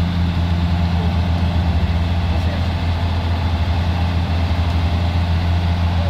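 Heavy diesel engine of a log-carrying crane truck running steadily with a low, rapid pulse as the truck moves a large log.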